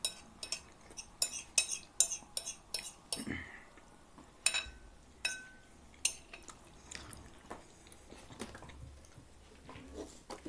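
Metal fork clinking and scraping on a plate as the last of the food is gathered up: a quick run of about a dozen clinks in the first three seconds, then a few single clinks spaced out.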